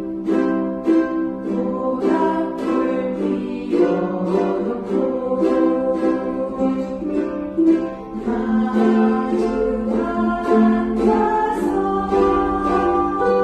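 Ukulele strummed in a steady rhythm of chords, playing the accompaniment to a 7080-era Korean ballad.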